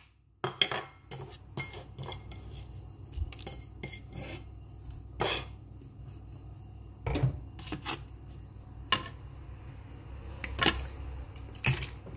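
Metal spoon clinking and scraping against a wooden bowl while mixing chopped parsley, garlic and butter, in irregular sharp knocks a second or so apart, over a low steady hum.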